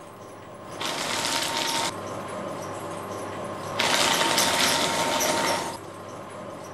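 Office paper shredder running as sheets are fed in: its motor whines and the paper is cut in two bursts, a short one about a second in and a longer one from about four seconds in.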